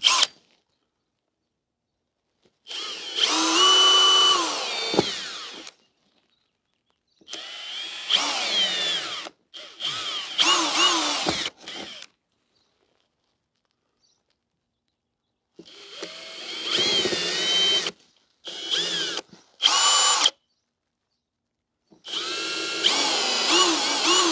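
Cordless drill with a 5/64-inch bit drilling pilot holes up into a soffit, in several separate bursts of a few seconds each. The motor whine rises and falls in pitch as the trigger speed changes.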